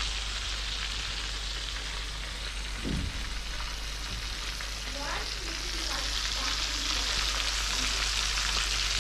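Batter-coated chicken wings deep-frying in hot oil in a pan: a steady sizzle.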